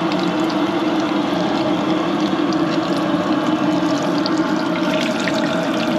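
Hush puppies frying in a stainless steel deep fryer, the oil held at close to 300 degrees bubbling and sizzling steadily with scattered small crackles, over a steady low hum.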